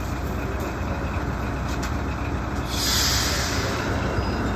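Diesel locomotive engine running with a steady low rumble as it eases up to couple onto a passenger car. About three seconds in, a hiss of air lasts about a second.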